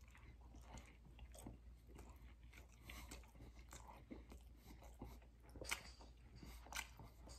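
Faint mouth sounds of a man chewing a mouthful of breakfast burrito: soft wet clicks and smacks, with two slightly louder ones in the second half.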